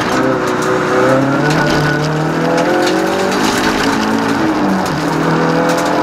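Toyota Starlet EP82 race car's four-cylinder engine heard from inside the cabin, running hard with its pitch climbing, levelling off, then dropping briefly and climbing again through the bends.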